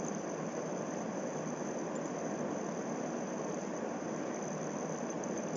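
Steady, even background hiss with a faint high-pitched whine running through it, unchanging throughout.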